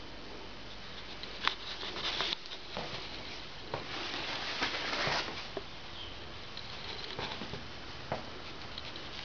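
Footsteps of sneakers on a gritty tiled floor: scattered light clicks, with a scraping scuff about two seconds in and a longer one around four to five seconds in.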